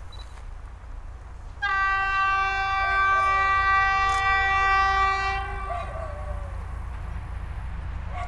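SU46 diesel locomotive sounding its horn on approach: one long blast of about four seconds starting a second and a half in, with a brief dip in pitch midway, over a steady low rumble.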